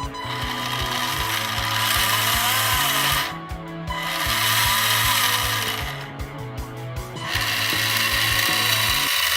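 Background music with a steady beat and held bass notes, and a dense buzzy layer on top that drops out twice for about a second.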